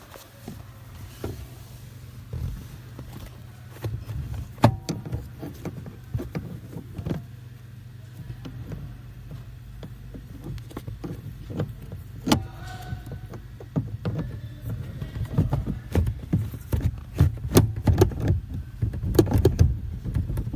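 Metal knocks and clanks of a steering rack assembly being worked into position under a car, irregular at first and coming thick and fast in the last several seconds, over a steady low hum.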